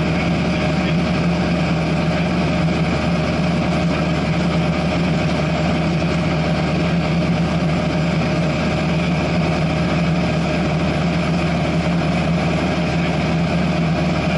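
Cessna 172SP's Lycoming IO-360 four-cylinder engine and propeller droning steadily in flight, heard inside the cockpit.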